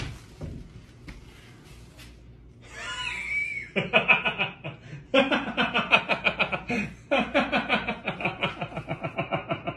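A man laughing hard in long runs of quick, pulsing bursts, starting about four seconds in. Before that there is quieter rustling as packing is pulled from a cardboard box.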